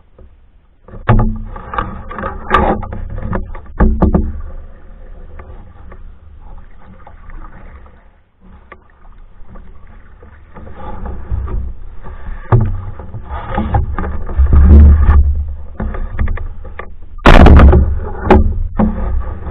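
Paddling a Hornbeck New Trick solo canoe: paddle strokes in the water come in uneven loud bursts, with a few sharp knocks.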